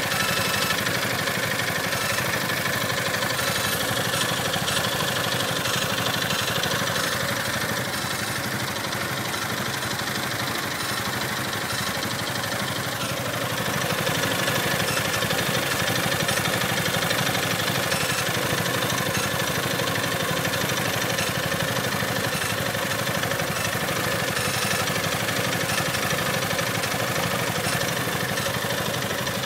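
Piaggio MP3 500 scooter engine running at idle, steady throughout and slightly louder from about halfway. It carries a suspect noise whose origin the owner cannot place.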